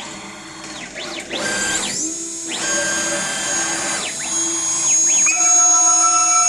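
High-speed CNC spindle whining. It spins up to a steady pitch, winds down about four seconds in, then spins up again.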